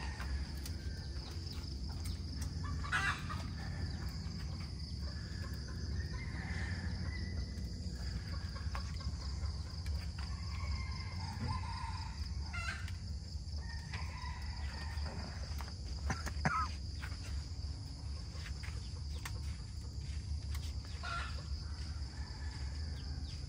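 Chickens clucking now and then over a steady high insect drone and a low steady rumble.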